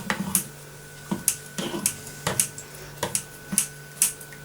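Knife tapping against a chopping board in quick, uneven strokes as raw chicken is sliced thinner, about two or three sharp clicks a second.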